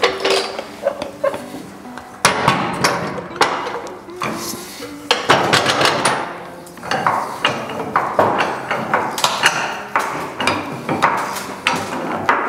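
Hydraulic floor jack being pumped up by its long handle under an ATV on a steel lift table: a run of metallic clicks and clanks with the handle strokes, starting about two seconds in.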